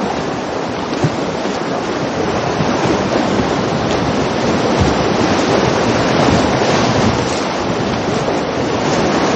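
River rapids rushing steadily over rocks: a loud, even roar of fast-flowing water.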